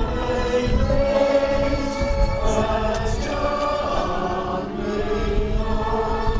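A choir singing a slow sacred piece, long held notes moving from one to the next.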